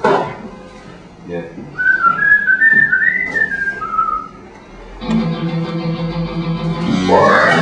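A person whistles a short tune of quick, separate notes, then music with guitar comes in about five seconds in.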